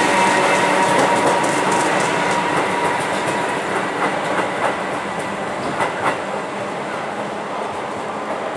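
Class 319 electric multiple unit running past and away, growing quieter. A steady electric hum fades out over the first few seconds, and its wheels click several times over rail joints and points about four to six seconds in.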